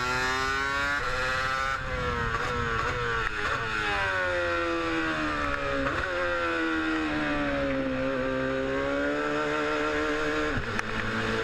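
Mercedes Formula One car's engine heard from the cockpit. The pitch climbs and drops with a gear change about two seconds in, then sinks slowly for several seconds as the car eases off, levels out, and shifts again near the end, the car winding down its installation lap toward pit entry.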